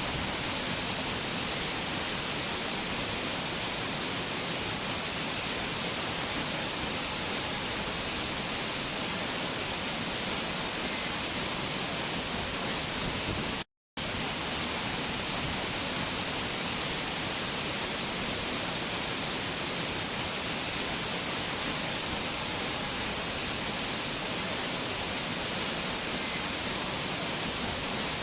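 Waterfall water rushing in a steady, unbroken hiss, cutting to silence for a split second about halfway through, where the recording loops.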